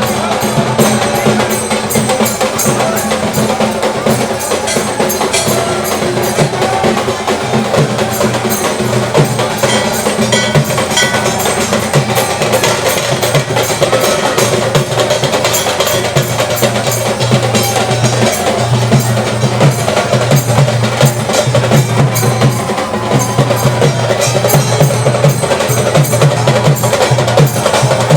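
Percussive music with a fast, busy beat of clicking, knocking strokes and ringing bell-like tones, playing steadily without a break.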